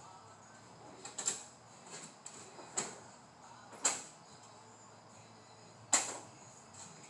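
Hand tools on an engine during a head-stud install: a handful of sharp metallic clicks and knocks at uneven intervals, the loudest about six seconds in, over a faint steady high whine.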